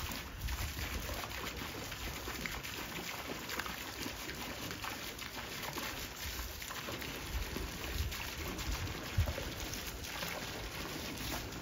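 Garden hose jet splashing steadily onto a swimming pool's surface, with wind rumbling on the microphone.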